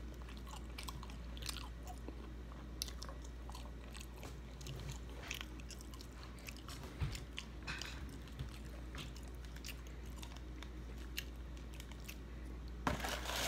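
A person chewing and biting into breaded fried fish, with many short crunches of the breading. Near the end, a paper or plastic packet crinkles.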